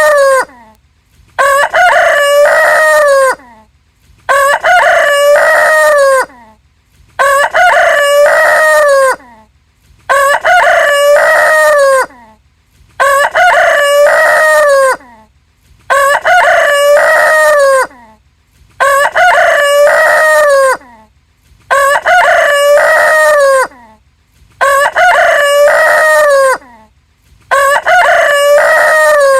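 Rooster crowing over and over, one crow about every three seconds, each about two seconds long and ending in a falling note. The crows are near-identical, the same crow repeated.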